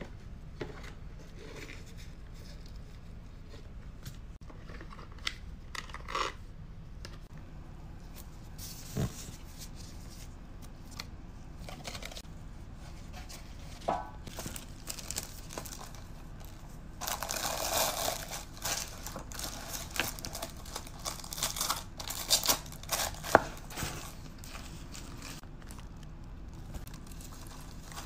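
Hands packing an order: scattered taps and clicks of plastic and cardboard, with paper crinkling and tearing. A longer burst of rustling comes a little past halfway, followed by several sharp crinkles.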